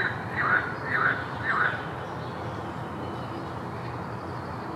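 Mallard duckling peeping: four short, high calls in quick succession in the first two seconds, each rising and falling in pitch.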